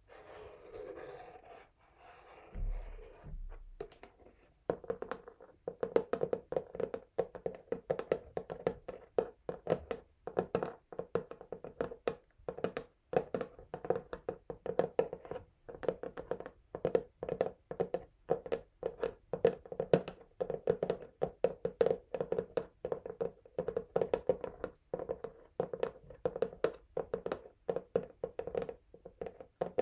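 Fingernails scratching lightly on a textured cardboard box, with a low thump about three seconds in. From about five seconds in, the nails tap quickly and steadily on the box, several taps a second.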